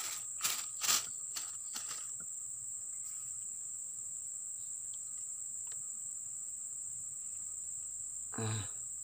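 Steady high-pitched drone of insects, with a few sharp clicks in the first two seconds.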